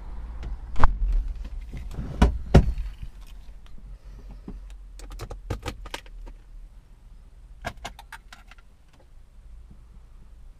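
Car keys jangling with a few knocks, then bursts of sharp clicks, as the ignition key of a Smart Roadster is handled and turned. No engine cranks or runs.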